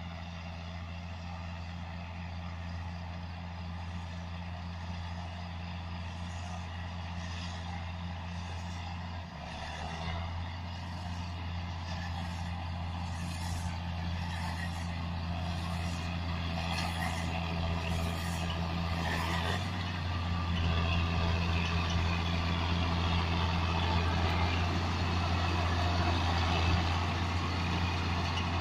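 John Deere 6620 tractor's six-cylinder diesel running under load as it pulls a Claas Rollant 255 round baler along a windrow, the engine hum and the baler's steady whine growing louder as the machine approaches. A regular ticking, a little faster than once a second, runs through the middle.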